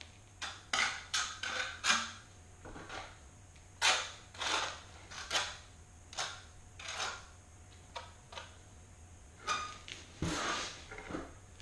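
Steel trowel scraping mortar across the back of a porcelain tile strip in about fifteen short, irregular strokes, with a longer, louder scrape near the end.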